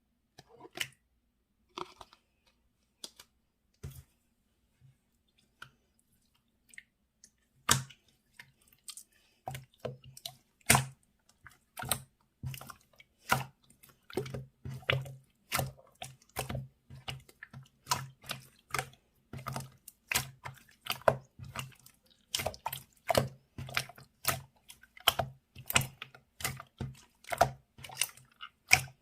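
Slime being pressed and squished by hand, giving sharp wet clicks and pops. A few scattered pops at first, then from about eight seconds in a steady run of about two a second, many with a soft low thud.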